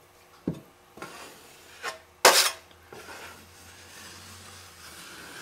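Handling of drywall tools: a few short knocks, then a louder brief scrape of a metal drywall knife, a little over two seconds in.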